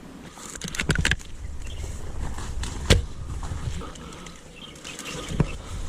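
A few sharp clicks and knocks over a steady low rumble, typical of gear handling and movement picked up by a body-worn microphone outdoors. There is a quick cluster of clicks about a second in, one sharper knock near the middle and another near the end.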